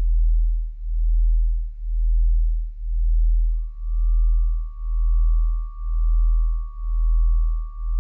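Electronic drone soundtrack: a very deep, loud hum that swells and fades about once a second, joined about three and a half seconds in by a thin, steady high tone.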